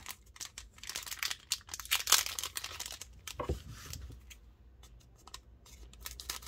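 Foil booster pack wrapper crinkling as it is handled, with a dull knock about three and a half seconds in, then scissors cutting into the top of the pack near the end.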